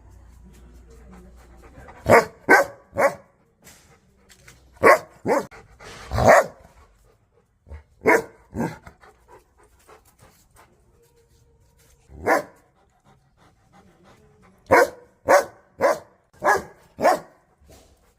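A dog barking aggressively in short volleys of sharp barks: three, then three, then two, a single bark, and a quick run of five near the end, with pauses of a few seconds between volleys.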